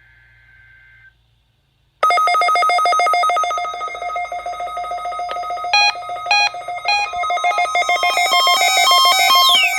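Several weather alert radios sounding their alarms together, set off by the weekly warning-alarm test. A loud buzzing alarm tone starts about two seconds in, on-off beeping from another radio joins around the middle, and a falling siren-like sweep begins near the end.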